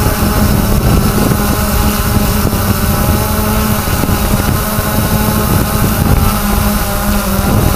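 3DR Solo quadcopter's four electric motors and propellers humming steadily, heard from the camera riding on the drone, with wind rumbling on the microphone.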